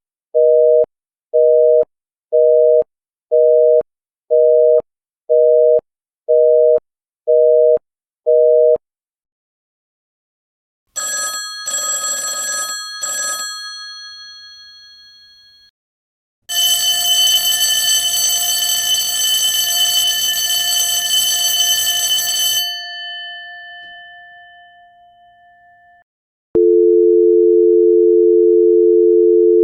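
A series of telephone sound effects: a two-tone busy signal beeping about once a second, then bursts of metallic bell ringing that fade away, then a steady dial tone starting near the end.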